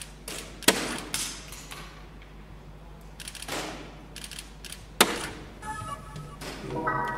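Soft-tip darts hitting a Phoenix electronic dartboard with sharp hits, the loudest about a second in and about five seconds in, each followed by the machine's electronic hit effects. Near the end the machine plays a short electronic jingle that marks the end of the three-dart turn, the call to remove the darts.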